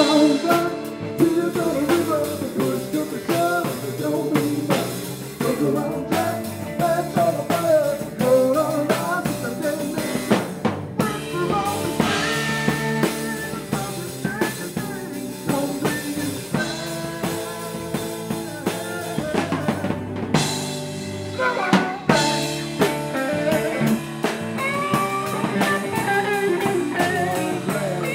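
Live blues-rock band playing, loud and continuous: electric guitar over a drum kit with snare and cymbal hits.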